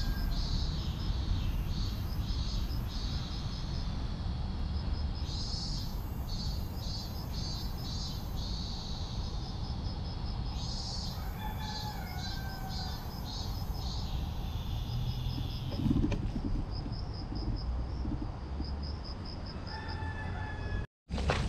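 Outdoor ambience: trains of quick, high-pitched chirps repeating several times a second over a steady low rumble, with a few short, lower chirps now and then. The sound cuts out for a moment near the end.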